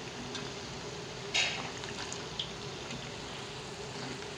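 Breadcrumb-coated patties deep-frying in hot oil, a steady bubbling sizzle. About a second and a half in there is a brief louder scrape as the patties are turned with a slotted spoon.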